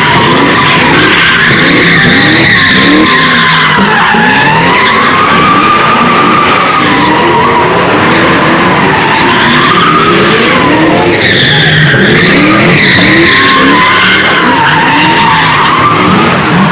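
A car's tires squealing continuously as it slides in circles on the pavement. The squeal wavers up and down in pitch, and the engine revs up and down repeatedly beneath it.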